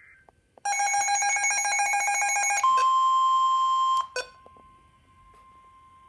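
Midland weather radios sounding a severe thunderstorm warning alert: a rapidly pulsing electronic alarm beep for about two seconds, then the steady single-pitch NOAA Weather Radio warning tone, loud for about a second and a half. It drops with a click just after the four-second mark and carries on faintly.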